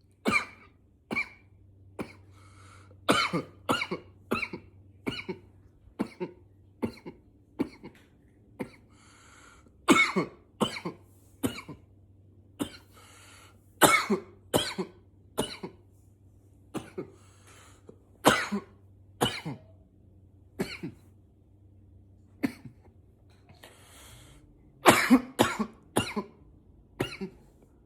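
A man coughing over and over: dozens of sharp, short coughs, often two or three in quick succession, with short pauses and faint breaths drawn between runs.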